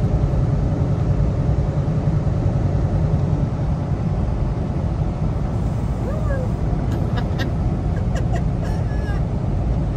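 Kenworth T680 semi truck cruising, heard from inside the cab: a steady low engine and road rumble. A brief gliding squeak comes about six seconds in, and a few light clicks follow.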